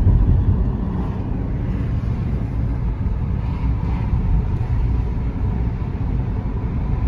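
Steady low rumble of a car on the move, heard from inside its cabin.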